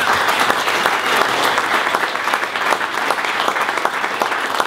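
A room of guests applauding, many hands clapping steadily.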